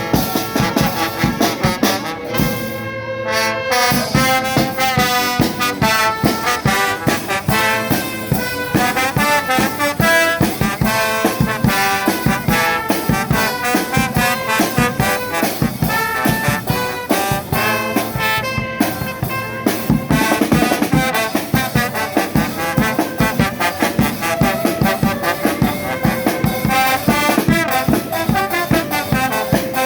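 Charanga brass band playing: trumpets and trombones carrying the tune over a steady, driving drum beat.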